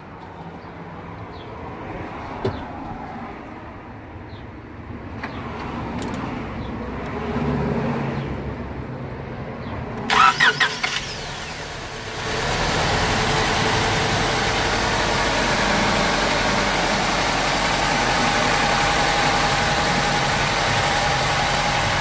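Car's four-cylinder engine cranked by the starter about ten seconds in, catching about two seconds later and then idling steadily. The engine has a misfire and runs rough.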